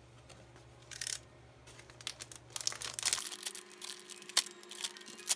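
Clear plastic wrap on a rolled model-railroad grass mat being slit with a utility knife and torn off: crinkling and crackling in a run of short, irregular bursts from about a second in, the loudest near the end.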